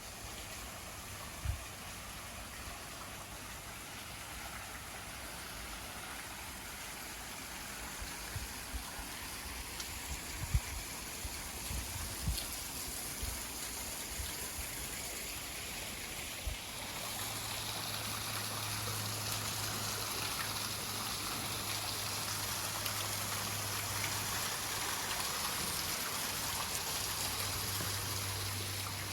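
Garden waterfall: water falling and splashing steadily. A few low thumps come in the first half, and a low steady hum joins about halfway through.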